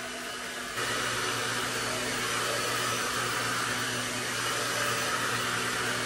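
Pattern Beauty hair dryer blowing steadily: a rush of air with a steady motor hum under it. It gets louder about a second in and stays so.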